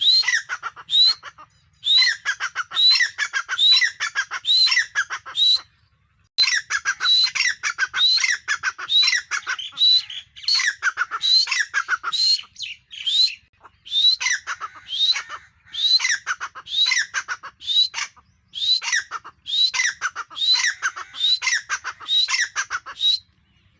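Grey francolin calling: a long series of loud, rapidly repeated shrill phrases, each with a sharp rising note, with a brief pause about six seconds in.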